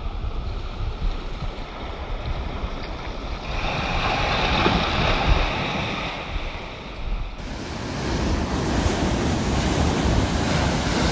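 Wind buffeting the microphone over small surf washing in. The sound changes abruptly about seven seconds in, where a second recording of the surf begins.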